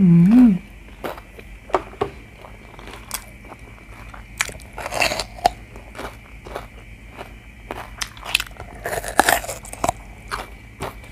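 A short hummed "mm" at the start, then close-miked crunchy bites into a raw sweet bell pepper and wet chewing, with the loudest crisp bites about four and a half and nine seconds in.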